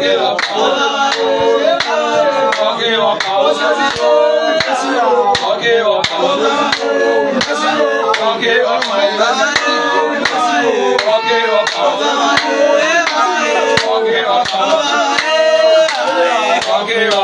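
A crowd singing together over a steady beat of sharp strikes.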